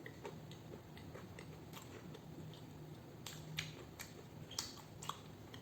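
Close-miked chewing of fried chicken dipped in honey mustard sauce: soft, irregular mouth clicks and crunches, about two a second.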